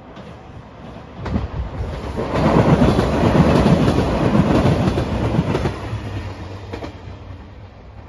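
A three-car JR Shikoku 2700 series diesel express train passing close by, its wheels clacking over rail joints. The sound swells to a peak about three to five seconds in and then fades as the train moves away.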